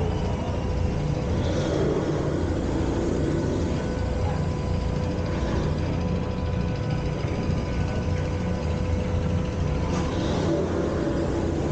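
Steady low mechanical rumble of a riverboat underway, running evenly without change.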